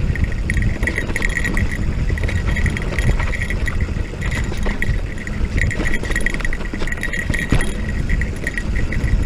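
Electric mountain bike ridden over rough dirt trail: a continuous rumble of tyres and wind, with the frame and chain rattling and knocking over rocks. Over it a high whine swells and fades, the pedal-assist drive motor working.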